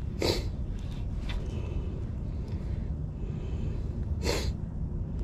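Two short, sharp breaths about four seconds apart, over a steady low rumble of surf and wind.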